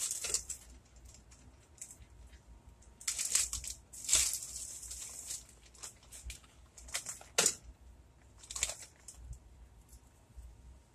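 A bag of brown sugar crinkling and rustling as it is handled and opened, in several short bursts with quiet gaps between.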